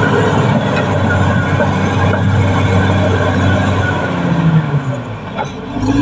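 Caterpillar D6R XL crawler bulldozer working under load: its diesel engine runs steadily, the pitch sagging about four seconds in and picking back up near the end.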